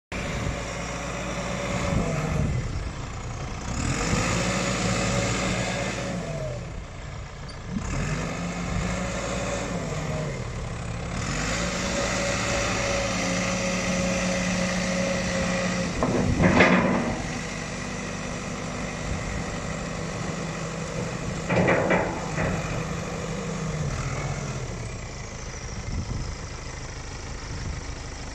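New Holland LB95 backhoe loader's diesel engine running, its speed rising and dropping back several times. Two sharp knocks cut through it, the louder a little past halfway and another about three-quarters of the way in.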